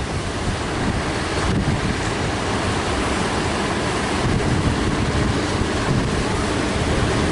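Heavy surf, large waves breaking and rushing, with strong wind buffeting the microphone.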